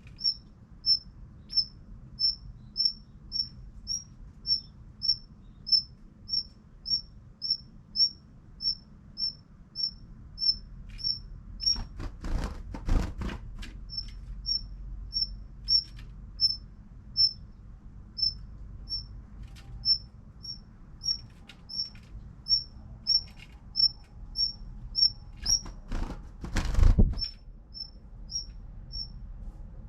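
Daurian redstart repeating a short, high 'hit' call about one and a half times a second. Twice, about twelve and about twenty-six seconds in, there is a loud burst of wing-flapping and fluttering against window glass as the bird attacks its own reflection.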